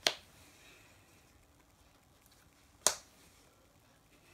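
Two sharp snaps about three seconds apart as sleeved trading cards are slapped down onto a playmat.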